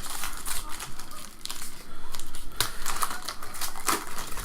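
Trading cards and their pack being handled, with a dense run of quick clicks and rustles. The sharpest snaps come about two and a half seconds and four seconds in.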